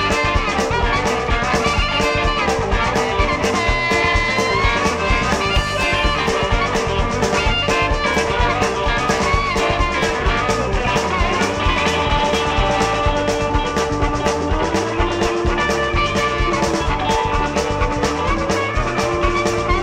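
Instrumental passage of a blues-rock recording: guitar lines over a steady drum-kit beat, with no vocals.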